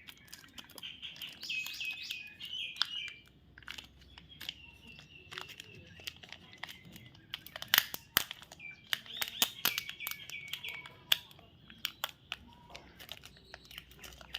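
A bird chirping in two runs of quick, repeated, falling notes, one near the start and one in the middle. Scattered sharp clicks and crinkles come from chocolate wrappers being handled.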